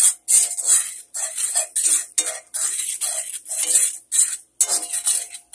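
A utensil scraping and stirring in a cast-iron skillet as eggs are scrambled, in quick repeated strokes about three a second.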